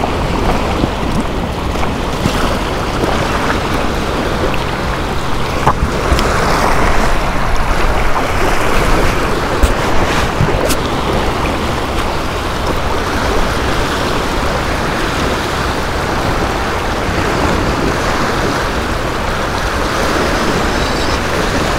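Sea surf washing against a rock jetty, a steady loud rushing noise, with wind rumbling on the microphone.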